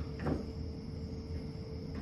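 A plastic spreader scraping short-strand fiberglass filler into gaps in a rusted truck bed, one brief scrape about a quarter second in, over a steady low background hum.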